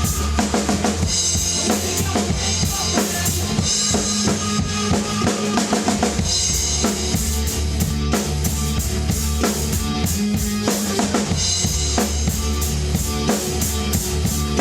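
Acoustic drum kit played in a rock groove, with bass drum, snare and rimshot hits, over a loud heavy-rock backing track of distorted guitars and bass with no vocals.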